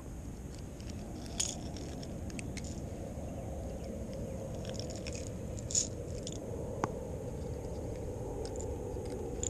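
Metal fishing pliers working a lure's hook free from a small bass's mouth: a few light metallic clicks and scrapes over a steady low background noise.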